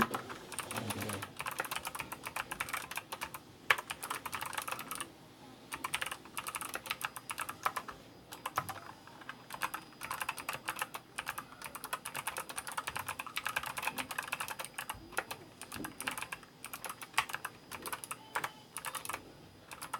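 Fast typing on an ABKO K660 keyboard with Kailh optical switches: a dense run of key clicks with a few short lulls and a couple of louder single keystrokes, one about four seconds in and one near the end.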